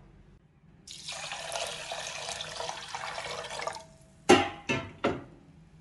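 Water running steadily into a bowl of raw rice and split moong dal for about three seconds, filling it to wash the grains. Three short sharp sounds follow near the end.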